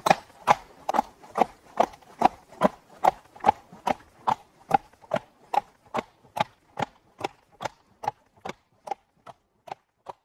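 A trot-training riding simulator knocking in an even trotting rhythm, about two and a half knocks a second, slowly fading out.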